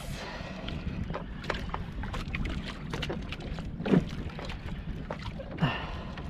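Steady low rumble of a small outrigger fishing boat at sea, with water hiss and scattered light clicks. Two short louder sounds stand out, one about four seconds in and one near the end.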